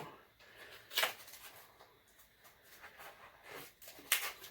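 Packaging rustled and handled by hand while a mystery box's contents are taken out, with two sharper crackles, about a second in and again near the end.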